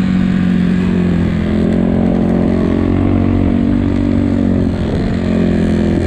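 Enduro motorcycle engine running at a steady pace under way, easing off briefly about three-quarters of the way through before holding again.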